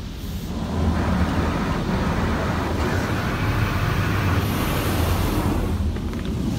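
Washworld High Velocity touchless car wash spraying the car with high-pressure water jets, heard from inside the cabin as a loud hiss and drumming of water over a low pump hum. It builds up about a second in and eases off near the end as the spray passes.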